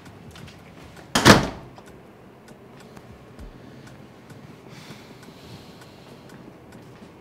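A door being shut, one loud bang about a second in, followed by faint light ticks.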